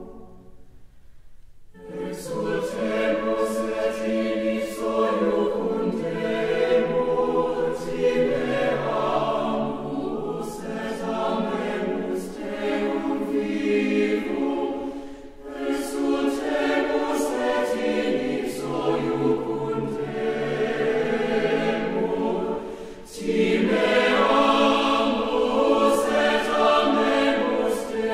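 Background music: a choir singing, coming in about two seconds in after a brief quiet gap.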